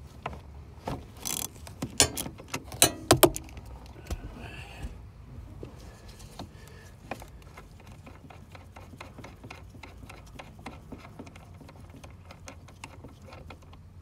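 Ratchet wrench with a 14 mm socket backing off the nut on a transmission shifter cable. A few sharp clicks and knocks come in the first three seconds or so, then a fast, faint, steady ratchet clicking.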